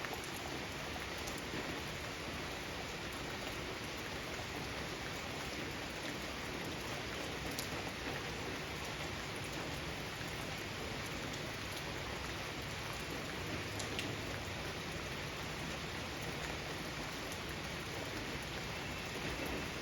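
Steady rain falling on a garden, an even hiss with scattered individual drops pattering on surfaces.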